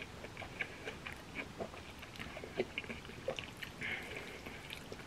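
Mouth chewing a mouthful of jajangmyeon noodles in black bean sauce: faint, irregular wet clicks and smacks.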